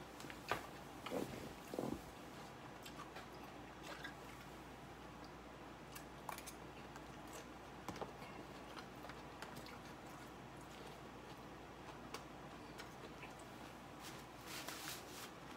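A person chewing mouthfuls of salad, faint, with scattered soft clicks from the mouth and a few louder ones in the first two seconds.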